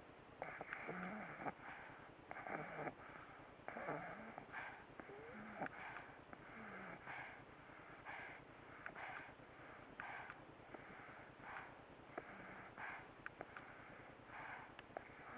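Pug snoring softly in its sleep, one short snuffly breath after another in a steady rhythm, with small wheezy squeaks.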